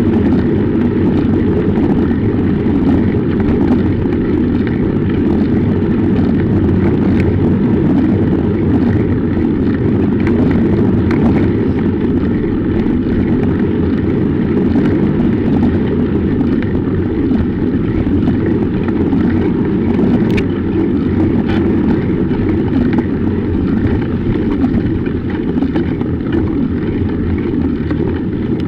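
Steady low noise of a bicycle riding along a snow-covered road, picked up by an action camera on the front fork: wind on the microphone mixed with tyre noise on snow. A few faint clicks and rattles come through now and then, one about two-thirds of the way in.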